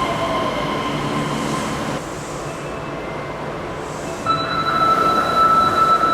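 Osaka Metro 400 series subway train at the platform, starting to pull out: a rumbling train noise, joined about four seconds in by a steady high whine as the train gets louder.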